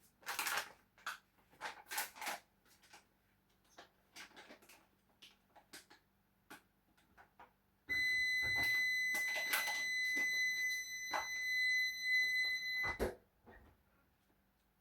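Clicks and light knocks of handling, then a steady high electronic beep that holds for about five seconds and cuts off with a knock.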